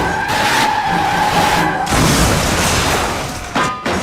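Tire-screech sound effect: a long squeal slowly falling in pitch that stops at about two seconds. A loud noisy rush follows it, with a short sharp burst near the end.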